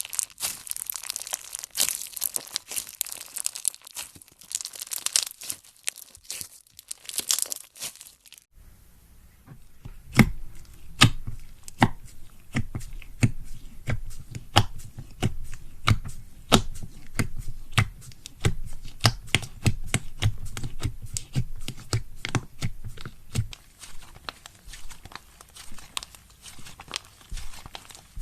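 Slime being squeezed and worked by hand: a dense, high crackling for about eight seconds, then an abrupt change to a run of sharp clicks and pops, several a second.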